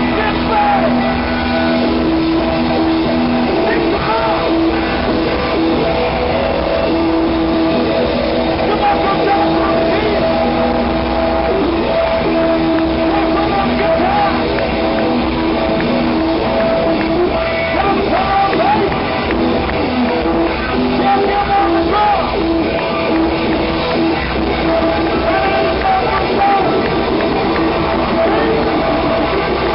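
Live band playing amplified music without a break, with electric bass and guitars prominent, heard from within the crowd.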